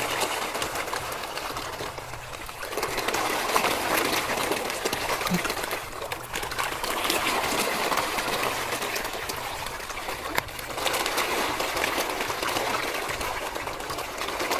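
A crowd of koi thrashing at the water surface while feeding: a dense, continuous splashing full of many small clicks and slurps.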